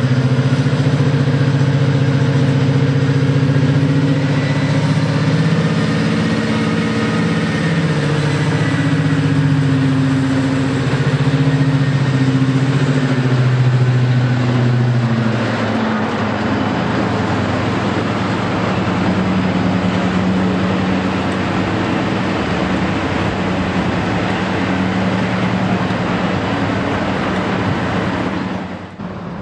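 Class 55 Deltic D9016's twin Napier Deltic two-stroke diesel engines running loudly as the locomotive moves slowly away. Its steady engine note turns rougher and noisier about halfway through, and the sound drops off abruptly near the end.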